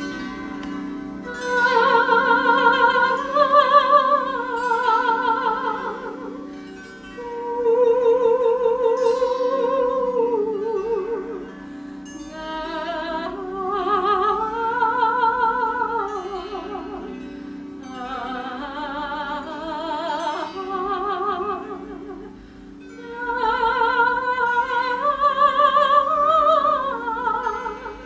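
A woman singing long, wordless phrases with a strong vibrato, in a high, operatic style, over a plucked string instrument of the zither or harp kind.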